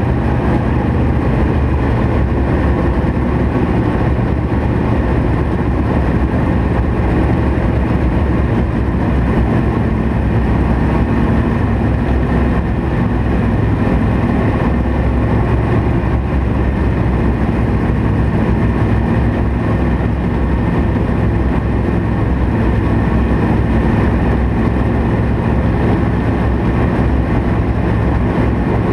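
Dirt late model race car's V8 engine, heard from inside the car, running hard under power at a fairly steady pitch.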